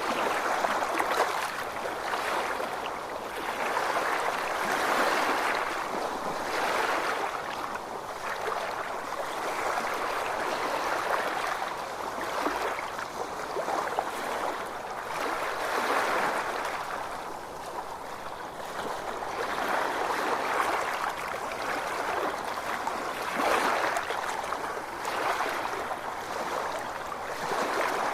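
Ocean waves washing in: a steady rush of water that swells and eases every few seconds.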